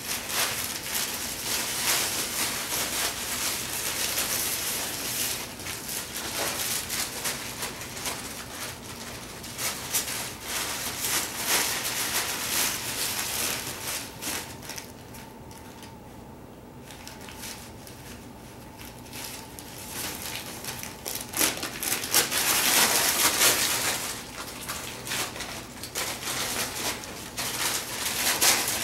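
Crumpled brown paper crinkling and rustling as a Shetland sheepdog puppy paws at and tugs it. The crinkling comes in uneven bursts, dies down for several seconds about halfway through, then comes back louder.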